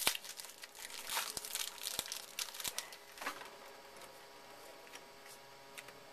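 Crinkling and tearing of a baseball card pack wrapper being opened and handled, in short rustles that are loudest over the first three seconds or so and then fade to a few faint ticks.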